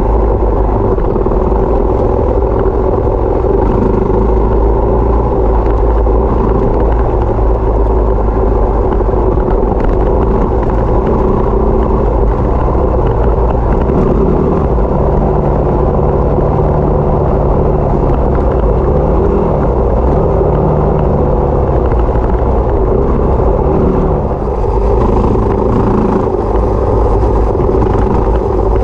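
Yamaha WR250 trail bike's single-cylinder four-stroke engine running steadily while riding, over a heavy low rumble, briefly dipping in level near the end.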